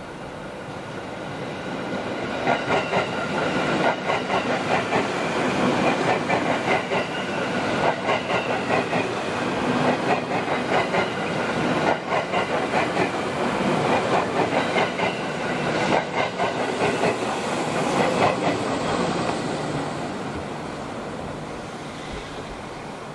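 Eight-car JR 701 series electric multiple unit passing, its wheels clattering over rail joints in a rapid, repeated clickety-clack. The sound builds over the first couple of seconds, stays loud for most of the pass, then fades away near the end.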